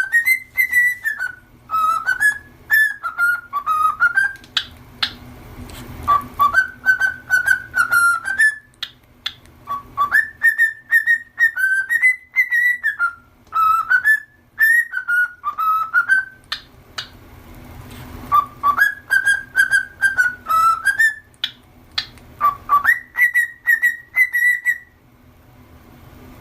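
Cockatiel whistling its song: phrases of short, gliding whistled notes, broken by brief pauses, stopping shortly before the end.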